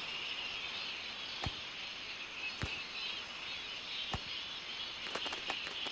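Tropical forest night ambience: a steady, dense chorus of insects, with a few scattered sharp clicks.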